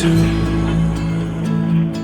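Background music: a slow, tender pop song, with instruments holding notes in the pause between sung lines.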